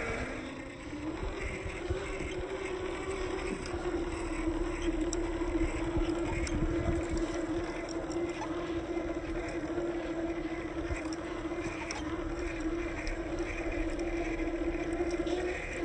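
The brushless electric drive of a 1/10 scale RC Land Rover Series III crawler whines steadily under load, the pitch rising slightly about a second in and then holding. Its tyres crunch through loose sand beneath it.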